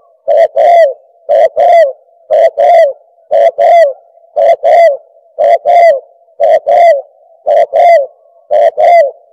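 Recorded call of a bato-bato (turtle dove) played as a lure to draw doves in: a two-note coo repeated about once a second, nine times, the second note of each ending in a falling slide.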